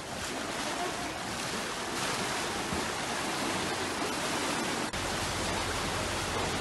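Floodwater rushing and splashing as rescuers wade through it pushing a boat, a steady noisy rush. About five seconds in the sound breaks briefly and a deeper rumble joins it.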